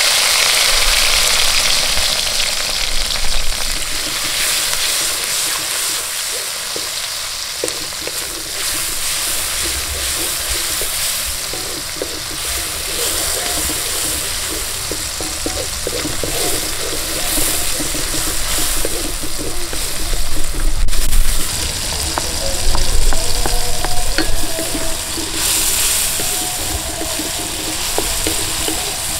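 Sliced shallots, garlic, tomato and green chilli hit hot oil in a wok with a sudden sizzle, then keep frying steadily while a spatula stirs them, clicking and scraping against the wok. Later the wok holds cubes of tempe and aloe vera, which are stir-fried the same way.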